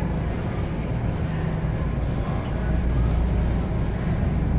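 Steady low rumble of supermarket background noise in a frozen-food aisle, with no distinct events.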